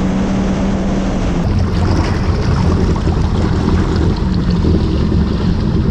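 Yamaha WaveRunner personal watercraft engine running under way, with water rushing and wind on the microphone. The engine note shifts lower about a second and a half in.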